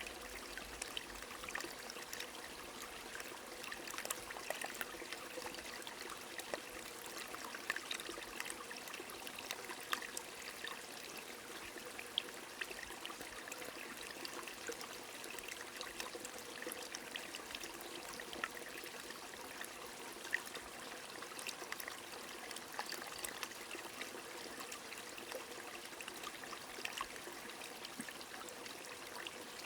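A small stream running steadily, with rain falling: many scattered sharp drop ticks over the even rush of water.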